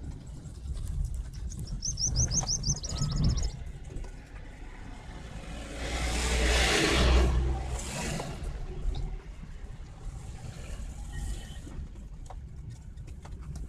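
Steady road and engine rumble heard from inside a moving car. About six seconds in, a bus passes close alongside, and a rush of noise swells up and falls away over two or three seconds. Earlier, about two seconds in, there is a quick run of high chirps.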